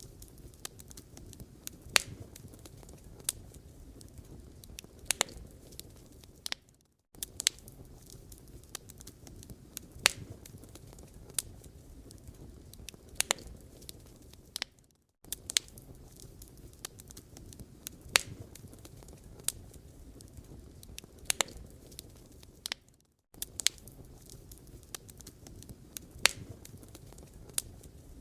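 Wood fire crackling in a fireplace: irregular sharp pops and snaps of burning logs over a soft steady rustle of flames. The sound briefly fades out and cuts back in about every eight seconds, the seams of a repeating loop.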